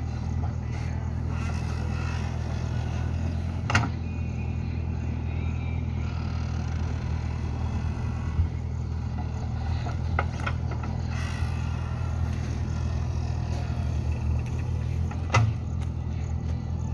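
JCB backhoe loader's diesel engine running steadily, with a few sharp metallic knocks from the working machine.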